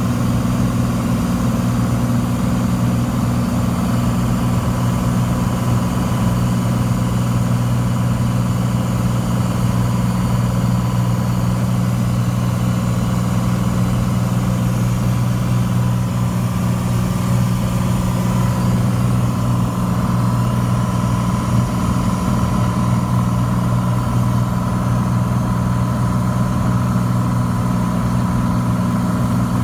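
Cessna 182's piston engine and propeller running at steady power in flight, heard from inside the cabin as an unbroken drone.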